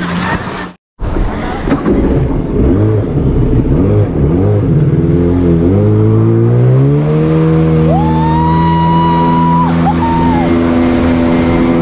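Jet ski engine running at low speed with a wavering pitch, then rising as it accelerates about six seconds in and holding a steady high pitch. About eight seconds in, a rider lets out a long high shriek over it.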